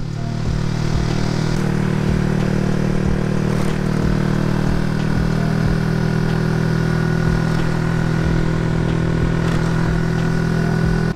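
Honda Winner X motorcycle's single-cylinder engine running at a steady cruising speed, with wind rushing over the microphone.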